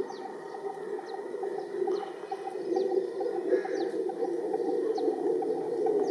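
Insects buzzing as a steady low drone around a flowering citrus tree, with a bird's short, high, falling chirps repeating a little under a second apart.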